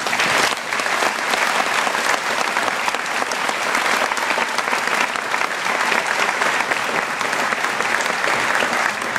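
Large audience applauding, breaking out all at once and holding steady for several seconds.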